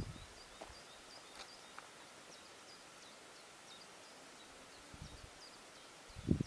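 Quiet outdoor ambience: a steady hiss with faint short bird chirps, mostly in the first half, and low thumps about five seconds in and again, louder, near the end.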